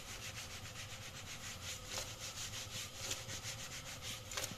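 Shrimp sizzling and crackling in hot oil in a wide frying pan as they sear, with a couple of sharper clicks about two seconds in and near the end.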